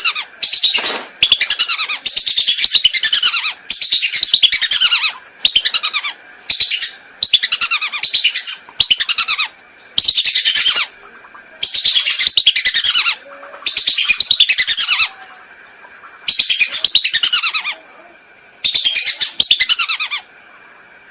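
Whistling ducks (belibis) calling: repeated bursts of shrill, falling whistled notes, each burst under a second or so long, with short pauses between them.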